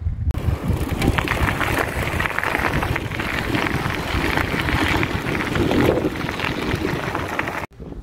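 Mountain bike tyres rolling over a gravel path: a dense crackling hiss of grit and stones, with wind rumbling on the microphone. It starts abruptly just after the beginning and cuts off sharply near the end.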